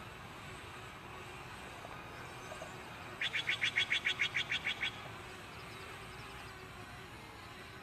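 A songbird's rapid trill: about a dozen quick, evenly spaced notes over less than two seconds, starting about three seconds in, over a faint steady background hiss.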